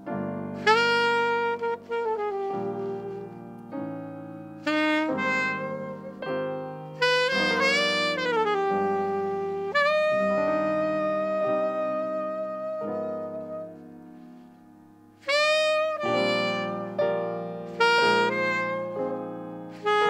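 Alto saxophone playing a slow jazz ballad melody, with bends and slides between notes, over piano chords. About ten seconds in, a long note is held and fades away before the saxophone and piano come back in.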